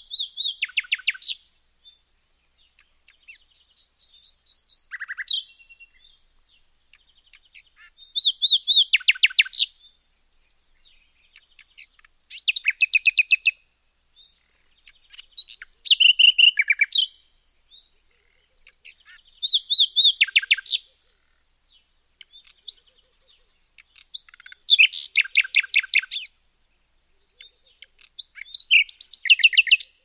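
A songbird singing short phrases of rapid high trilled notes, one phrase about every four seconds, eight phrases in all, with near silence between them.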